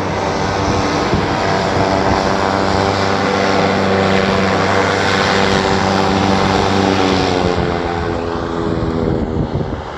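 Propeller aircraft engine running loud and steady with a drone of several tones. Its pitch slides down and the sound eases off near the end.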